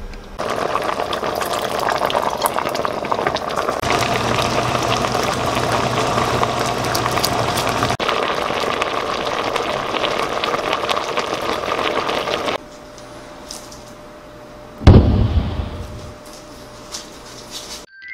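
Kimchi stew bubbling at a boil in a stainless steel pot, a steady, dense bubbling that stops abruptly about twelve seconds in. A single loud thump comes about three seconds later.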